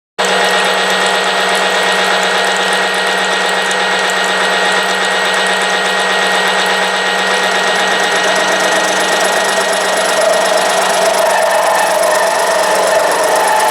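CNC machine running a cutter over the square knuckle on an antique car's clutch shaft, with a steady spindle hum under continuous cutting noise. The cutting sound grows stronger about ten seconds in.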